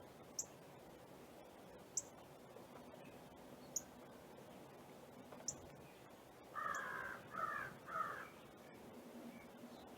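A crow cawing three times in quick succession about seven seconds in, with short high-pitched chips every second or two.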